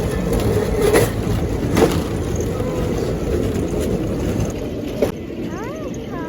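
Rail bike's steel wheels rolling along the track: a steady rumble with sharp clacks about one second in, again just under two seconds in, and once more about five seconds in, after which the rumble is quieter.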